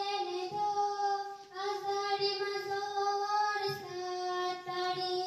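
A child singing long held notes on a nearly steady pitch, in three phrases with brief breaks between them.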